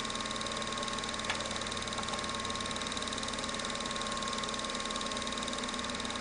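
Home-movie film projector running: a steady mechanical whir and hum that does not change, with one faint click a little over a second in.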